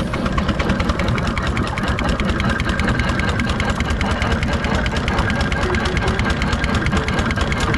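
Miniature steam traction engine running under way, its motion and exhaust beating at a fast, even rhythm.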